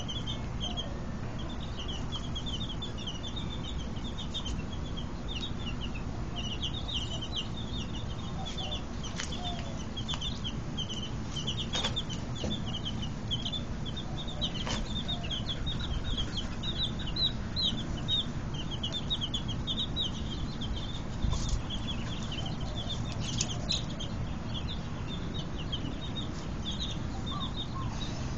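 A brood of about ten baby chicks peeping continuously, many short high cheeps overlapping, over a steady low rumble.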